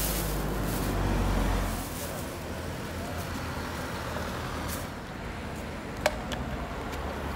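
Road traffic: a vehicle passes close by with a low engine rumble that swells about a second in and fades, over a steady hum of traffic. A single sharp click near the end.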